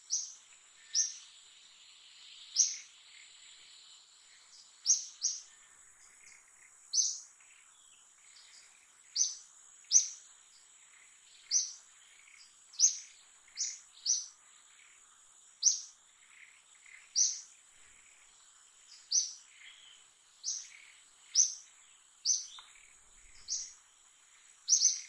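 A bird giving short, high chirps that drop in pitch, repeated every second or two and sometimes in quick pairs, over a steady high-pitched insect whine.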